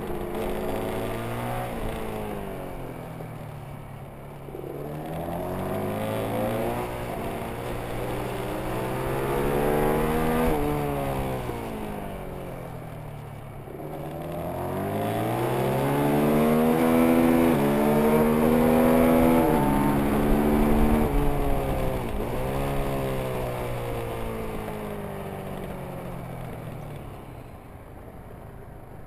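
Motorcycle engine running hard around a track, its pitch climbing under acceleration and falling away when braking for corners, several times over. The loudest and highest-revving stretch comes a little past the middle.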